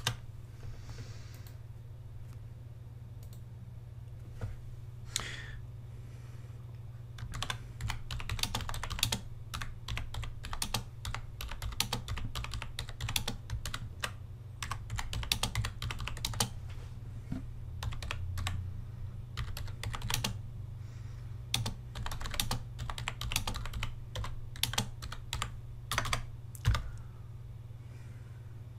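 Typing on a computer keyboard: a few scattered keystrokes, then a fast, continuous run of key clicks from about seven seconds in until near the end. A steady low hum runs underneath.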